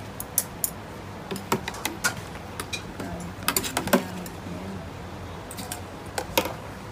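Metal fork and utensils clinking against stainless-steel food trays at a stall, in scattered clusters of sharp clicks, loudest a little before four seconds in, over a low steady hum.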